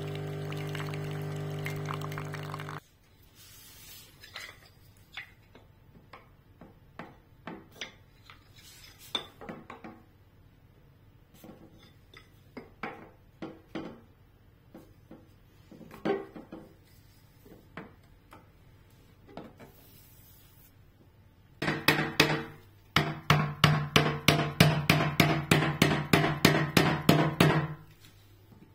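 Siemens EQ.9 bean-to-cup coffee machine humming as it dispenses coffee crema from its twin spouts, stopping suddenly about three seconds in. Scattered light clicks and taps follow. Near the end comes about six seconds of a loud buzzing hum that pulses about four times a second.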